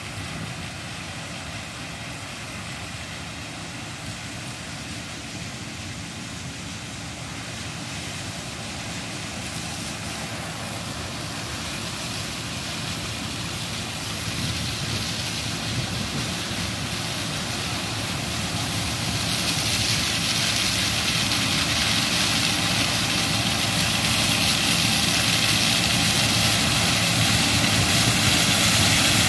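Claas Lexion 450 combine harvester running steadily while cutting sunflowers, its engine and threshing machinery growing gradually louder and brighter as it comes closer.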